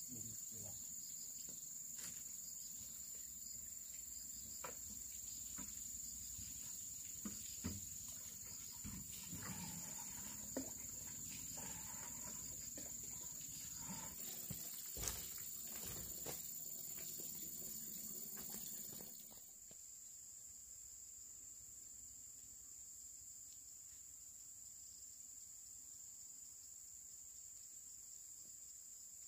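Insects trilling in a steady, unbroken high tone, with scattered small clicks and knocks that stop about two-thirds of the way in.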